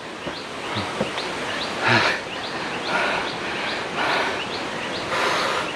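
Outdoor wildlife ambience: a short, high, rising chirp repeats about two to three times a second. Over it come soft breathy hissing bursts about once a second, heavy breathing after a long stair climb.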